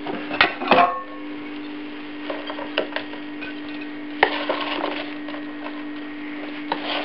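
Plastic serving spoon scooping chips and sausages out of a deep-fryer pan and knocking against the pan and a plate: a few scattered sharp clacks, the loudest about half a second in and again around four seconds in. A steady low hum runs underneath.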